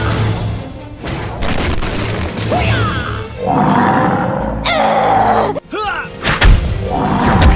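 Background music with dramatic sound effects, including a loud, deep thud about six and a half seconds in.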